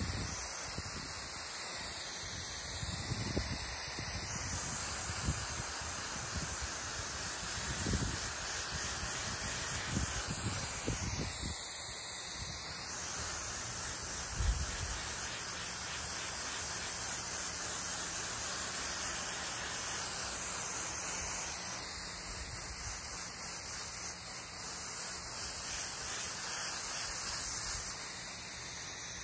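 Water spraying from a garden hose onto grass and wet soil: a steady hiss, with a few low bumps in the first quarter or so.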